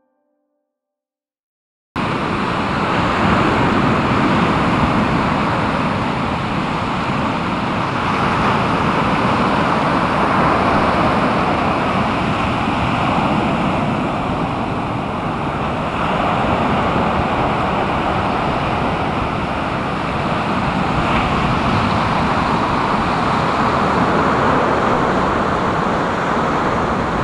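Steady outdoor ambient noise, a constant rushing with no single event standing out, starting suddenly about two seconds in after silence.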